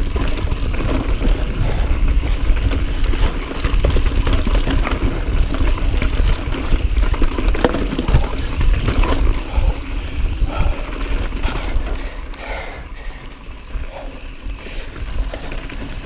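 Mountain bike ridden fast down a dry dirt trail: wind rushing over the camera microphone, tyres on loose dirt, and the chain and bike rattling with frequent sharp clicks and knocks. It eases off somewhat past the middle, then picks up again near the end.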